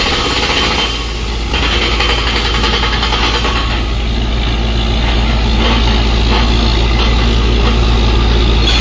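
Truck-mounted water well drilling rig running: a steady, loud heavy engine drone under a broad noisy rush. The noise dips briefly about a second in, then picks up again and holds steady.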